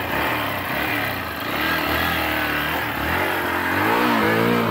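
Off-road motorcycle engine running under load, revved up and down a few times near the end.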